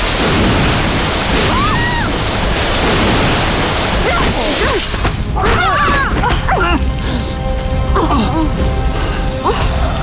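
Explosion blast, its rumbling noise lasting about five seconds, under dramatic music. Several people cry out and groan in pain, most clearly in the second half.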